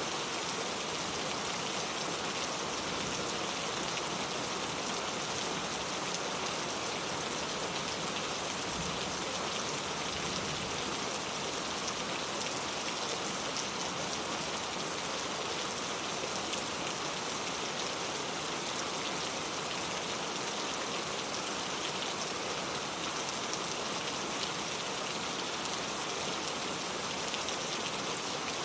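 Steady rain falling, a dense even hiss of drops with fine scattered patters, holding at a constant intensity.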